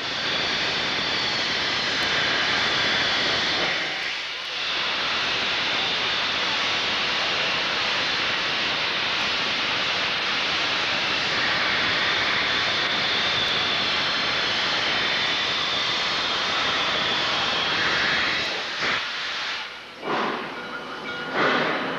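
Steam locomotive hissing steadily while standing, a loud even hiss of escaping steam that dips briefly about four seconds in; near the end it breaks into uneven, sharper bursts.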